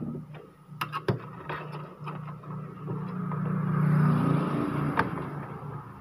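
A few sharp clicks and light scrapes of a small hand tool and a plastic flat flex cable being worked into a printer's printhead cable slot. Under them runs a low steady hum that swells to its loudest about four seconds in, then fades.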